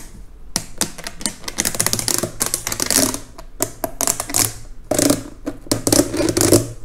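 Ribbed plastic hose of a 2UUL fume extractor being bent and repositioned by hand, giving a rapid, irregular run of clicks and crackles.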